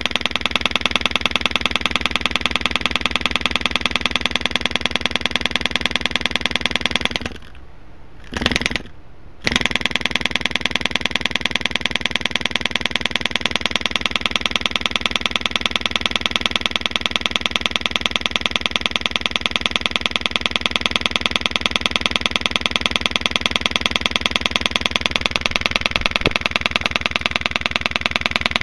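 Rockford Fosgate Crescendo mid-bass speaker driven hard by a clipping amplifier with a low test tone, giving a loud, rapid, evenly pulsing buzz full of distortion from the overdriven, damaged cone. The sound cuts out twice briefly about a third of the way in, then resumes.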